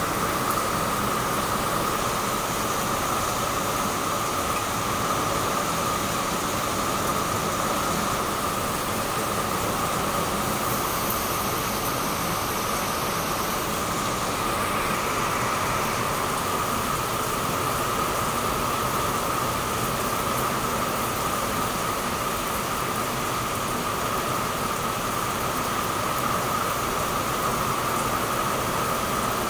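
Heavy rain pouring down steadily on a rooftop garden of potted plants and tiles, an even, unbroken hiss.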